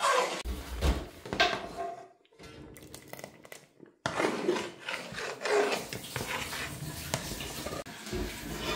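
Irregular scraping and rubbing of a kitchen utensil against cookware, with a sudden break about four seconds in.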